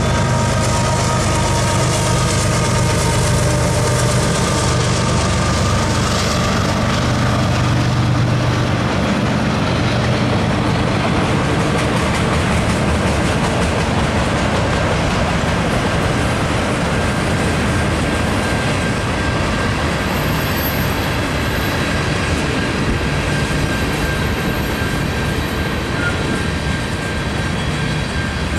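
Diesel-hauled CN freight train rolling past close by. The locomotives' low engine rumble is strongest in the first several seconds, then gives way to the steady rolling noise and clatter of autoracks and loaded coal hoppers on the rails, with a faint high steady whine in the later part.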